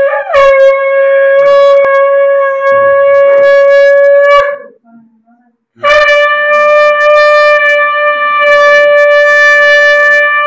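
Conch shell (shankha) blown in two long steady blasts. The first has a brief upward wobble in pitch just after the start and breaks off about four and a half seconds in; the second starts about a second later and carries on. This is the auspicious conch call of a Bengali blessing rite.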